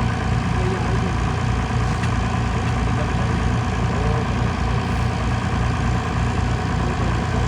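Heavy farm machinery engine running steadily with a low, even hum, as a tractor-driven harvesting machine works the wheat field.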